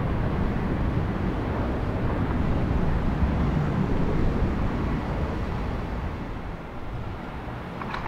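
Turbofan engines of a twin-engine business jet running at low power as it moves along the airfield: a steady low rumble with a hiss above it, fading away over the last few seconds.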